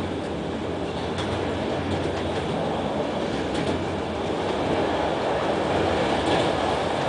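Passenger train running at speed, heard from inside the carriage: a steady rumble of wheels on the track with a few faint clicks.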